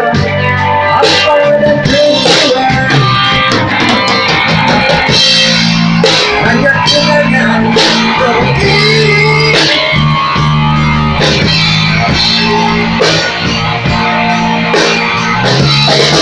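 A live amateur rock band playing through a small PA: electric guitar and bass guitar over drums keeping a steady beat.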